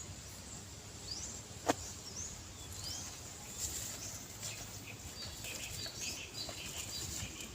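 Birds calling outdoors: short high chirps that sweep downward, repeated every second or so, over a low steady background rumble. One sharp click about two seconds in.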